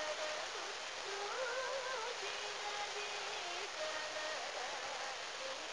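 A solo voice singing a slow, ornamented Carnatic raga phrase, one melodic line that wavers and glides between held notes, over a steady hiss from an old radio recording.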